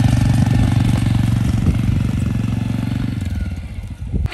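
Can-Am quad ATV engine running as it pulls away down a path, the sound fading away near the end as it rides off.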